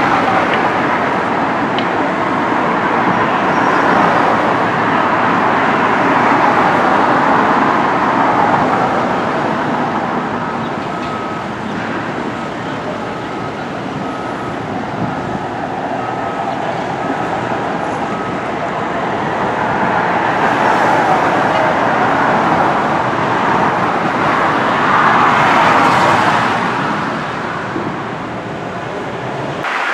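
Steady vehicle noise that swells and fades a few times. A faint short beep repeats about once a second for several seconds in the middle.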